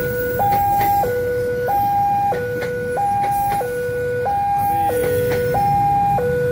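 Railway level-crossing warning alarm sounding its two-tone signal: a low and a high note alternating about every two-thirds of a second, warning that a train is passing. Underneath is the low rumble of a passenger train going through the crossing.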